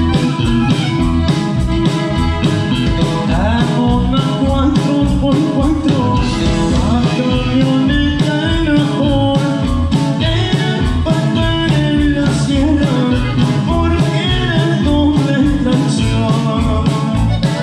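Norteño band playing live: button accordion, bajo sexto, electric bass and drums, with a steady beat.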